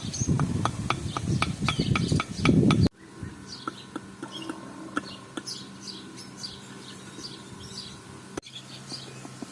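Rapid, evenly spaced knocking, about five a second, over a low rumble. About three seconds in it cuts off abruptly, giving way to birds chirping in short high calls.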